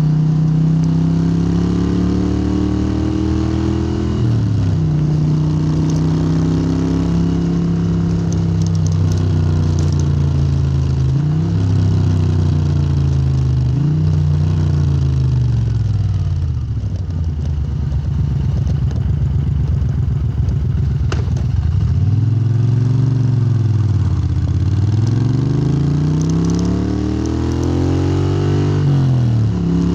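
Moto Guzzi transverse V-twin through Lafranconi silencers, its pitch climbing and then dropping sharply several times. The note holds lower and steadier about halfway through, then falls and rises again in quick sweeps near the end.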